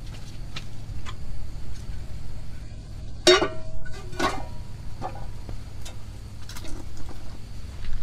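Metal cookware clanking twice at a wood-fire stove, each knock ringing briefly, among scattered small clicks.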